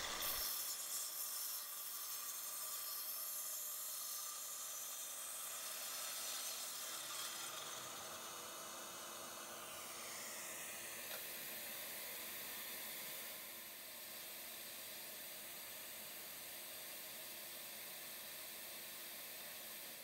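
Mitre saw cutting a thick pine board, heard faintly as a steady hiss with a thin whine that dips in pitch about ten seconds in.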